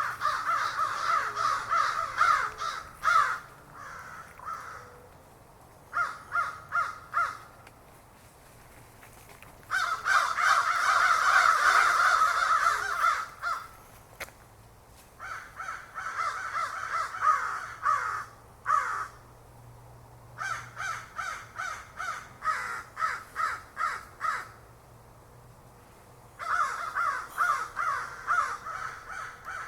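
Several crows cawing in bursts of rapid, repeated caws, with short pauses between the bursts; the calls crowd together most thickly and loudly about a third of the way in.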